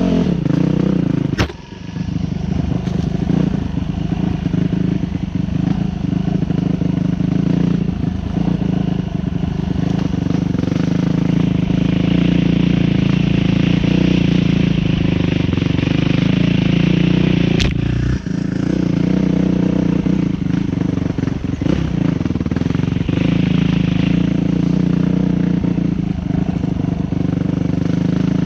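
Enduro dirt bike engine running at a steady pace while riding, heard from on the bike, with the bike clattering over rough trail. Two sharp knocks, one about a second and a half in and one a little past halfway.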